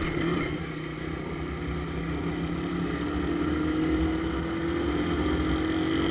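Shineray motorcycle engine running steadily under way, with a hole drilled in its exhaust pipe to make it louder.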